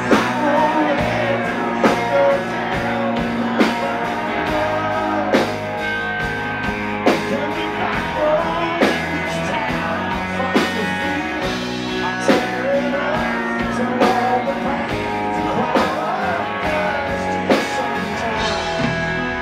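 Live country band playing a slow ballad: electric guitar, bass guitar and a drum kit keeping a slow, steady backbeat, under a male lead vocal.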